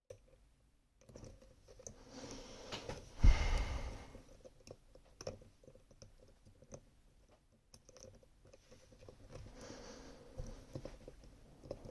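Small metal clicks and scraping of tools working in a Rosengrens 32A81H lock, with one louder knock about three seconds in.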